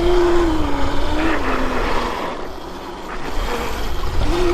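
72-volt Sur Ron electric dirt bike's motor whining over wind rumble on the microphone. The whine dips in pitch and fades about a second and a half in, then rises again near the end.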